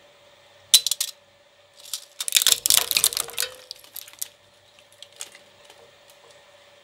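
Twin-shaft mini shredder's steel cutters chewing up a Hot Wheels die-cast toy car. There is a sharp clank as the car drops onto the blades about three-quarters of a second in, then a dense run of metallic cracking and clinking for about two seconds that tapers to scattered clicks. A steady motor hum runs underneath.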